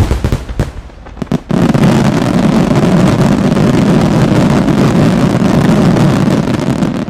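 Aerial firework shells bursting in a finale barrage: a quick run of sharp separate bangs, then from about a second and a half in a dense volley of bursts merging into one continuous heavy rumble that cuts off suddenly at the end.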